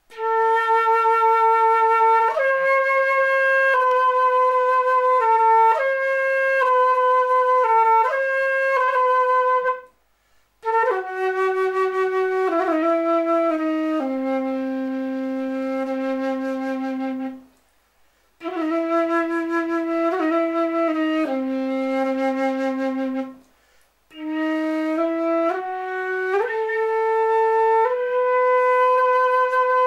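Solo concert flute playing a slow lament in four phrases, with short pauses for breath between them. Several phrases come to rest on a long held low note.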